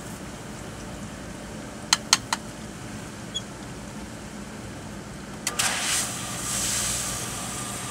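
Sprinkler system pump running with a steady hum, three sharp clicks about two seconds in; about five and a half seconds in, a hiss starts and holds as air and water are let out of a bleed valve on the pump's piping.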